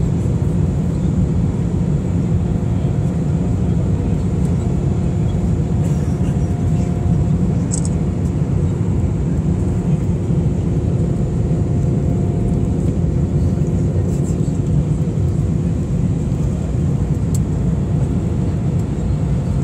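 Steady cabin noise inside an Airbus A319 airliner in flight: a deep rumble of airflow and the jet engines under the wing, with faint steady hum tones over it and a few faint clicks.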